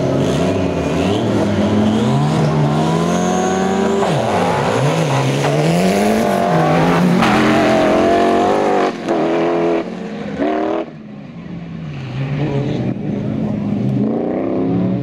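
Several autocross cars accelerating hard from a standing start on dirt, their engines revving together. The pitch climbs and then drops sharply at each gear change, several times in quick succession about two thirds of the way through.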